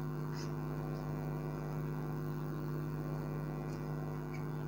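Steady electrical mains hum, one low tone with higher overtones at an even level throughout.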